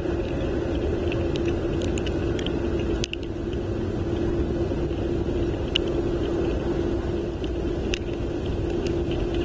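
Steady wind rumble on an outdoor nest-cam microphone in a snowstorm, with a constant low hum underneath and scattered faint ticks.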